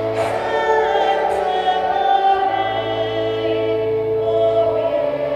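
Slow sacred choral music: a choir holding long, steady chords that shift a few times.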